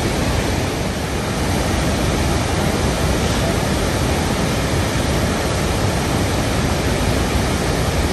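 The Rhine Falls' whitewater rushing over the rocks: a loud, steady rush of falling water that does not change, heavy in the low rumble.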